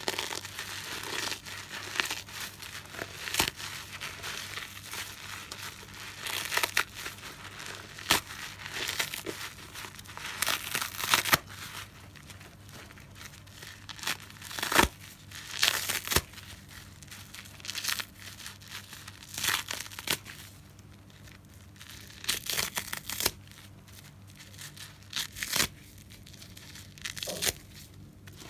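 Soapy car sponge being squeezed and torn apart by hand: crackling, tearing noise with repeated sharp rips every second or two as pieces pull away.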